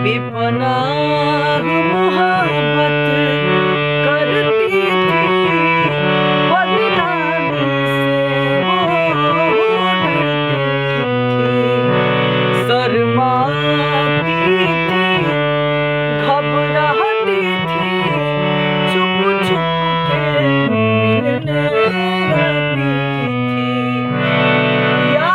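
Instrumental passage of a Bhojpuri song: a reedy, accordion-like melody instrument plays a winding tune over sustained bass notes.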